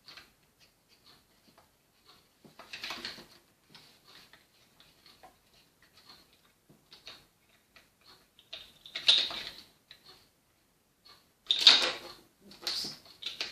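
Small plastic toy figures and a toy seesaw being handled: light clicks and taps, with louder plastic clatters about three, nine and twelve seconds in.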